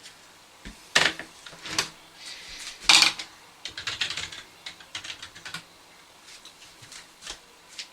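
Typing on a computer keyboard: irregular key clicks, a few single strokes and then a quicker run of presses, the loudest about three seconds in.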